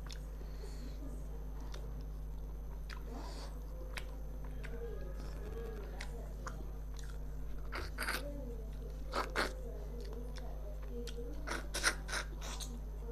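Close-miked hand eating of rice with fried fish: soft squishing as the food is mixed by hand, then clusters of sharp crunches and mouth clicks from biting and chewing near the middle and the end, over a steady low electrical hum.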